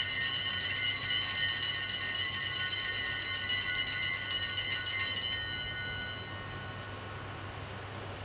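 Altar bells ringing steadily at the elevation of the chalice during the consecration, dying away about six seconds in.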